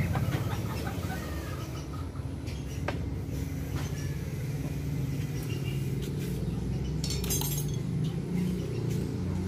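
A few light metallic clinks of a hand tool on the motorcycle's bolts and nuts, over a steady low hum.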